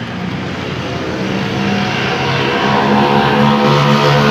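A vehicle engine running steadily close by, its low hum growing louder over the few seconds.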